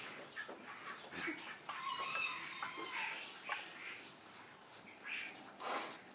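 Small birds chirping: a string of short, high chirps repeating every half second or so. A short noisy burst comes near the end.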